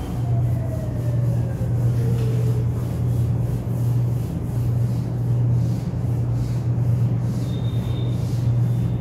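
Whiteboard being wiped clean with a duster: faint repeated rubbing strokes over a steady low hum.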